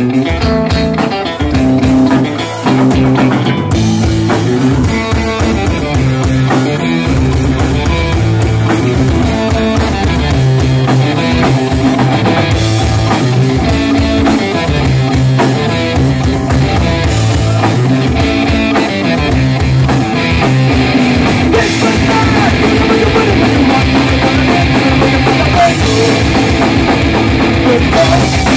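Live punk-rock band of electric guitar, bass guitar and drum kit playing loudly without a break.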